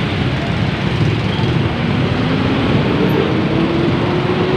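Loud road traffic noise, with one vehicle's engine rising slowly and steadily in pitch from about a second and a half in as it speeds up.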